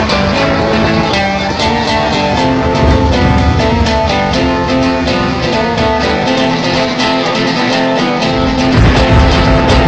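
Acoustic guitar played live, a continuous run of picked and strummed notes; the low end grows heavier near the end.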